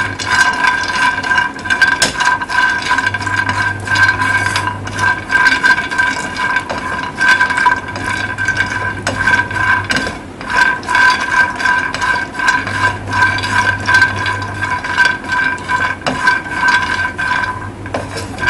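Cashews and almonds being stirred with a silicone spatula in a dry nonstick frying pan: the nuts clatter and slide against the pan as they dry-roast without oil. A steady high whine runs underneath.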